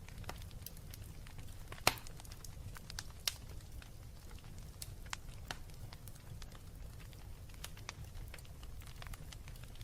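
Wood fire crackling in a fireplace, with irregular sharp pops from the burning logs; the loudest is about two seconds in and another comes shortly after, over a steady low rumble of the flames.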